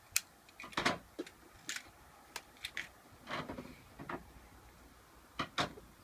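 Irregular clicks and knocks, about a dozen short sharp sounds scattered unevenly, with no steady alarm tone.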